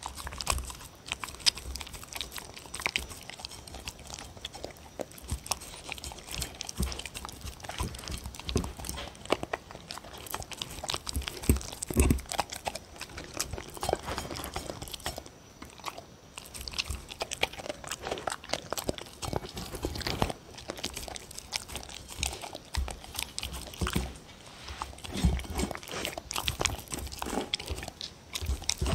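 Dog eating from a ceramic plate right at the microphone: irregular wet chewing and licking smacks, with small clicks of tongue and teeth on the plate.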